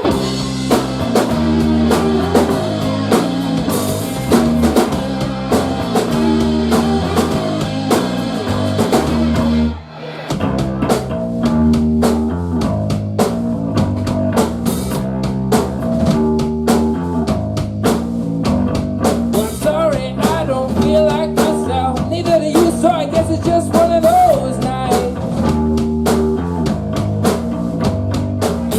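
Live rock band playing an instrumental passage on drum kit, electric guitar and bass. About ten seconds in the band stops briefly, then comes back in, and a wavering lead melody runs over it in the second half.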